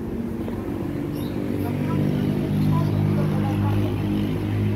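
A steady low machine hum with even overtones, growing louder about two seconds in and then holding.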